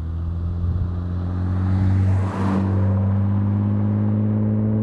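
BMW E36 M3's 3.2-litre straight-six (S52B32) running through a track pipe with a resonator and a glasspack on each side in place of the mufflers, a deep steady exhaust note as the car accelerates past. The sound is loudest as it passes, with a brief break in the note about two and a half seconds in, then a steady drone as it pulls away.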